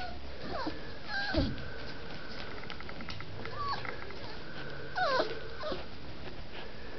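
Pyrenean Mastiff puppies whimpering: a few short, high whines that slide down in pitch, about a second in, again near four seconds and around five seconds.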